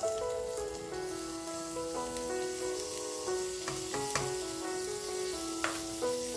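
Food sizzling as it fries in a pan, a steady hiss with occasional crackles, under background music with a simple melody.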